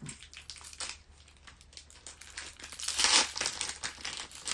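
Foil wrapper of a Magic: The Gathering booster pack crinkling and crackling as it is handled and opened, with a louder burst of crinkling about three seconds in.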